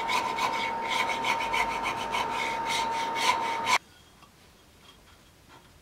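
Rapid back-and-forth rasping strokes of a hand file or rasp working the groove of two hardwood sword-handle halves clamped in a vise. The rasping stops abruptly just under four seconds in, leaving quiet room sound with a few faint ticks.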